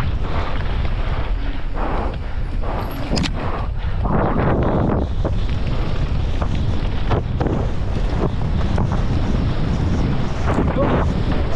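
Heavy wind buffeting on the microphone of a dirt bike ridden hard in an enduro race, with the bike's noise surging irregularly underneath.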